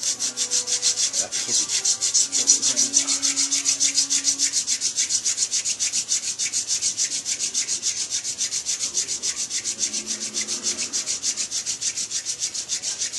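Hand-drill friction fire: a green white yarrow spindle twirled between the palms, grinding in a white pine root hearth board in a fast, even rhythm of rubbing strokes that starts suddenly. The spindle is still green, so it is being spun to force-dry it.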